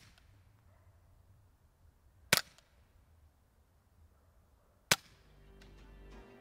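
Two suppressed shots from a Remington 597 .22 LR rifle fitted with a TBA Peacemaker rimfire suppressor, firing subsonic rounds. The first comes a little over two seconds in and the second about two and a half seconds later. Each is a short sharp report, metering about 113 to 114 dB.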